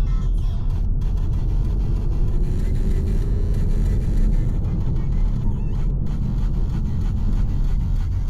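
VW T-Roc driving, its engine and road noise making a steady low rumble, with the engine note rising a little about two seconds in.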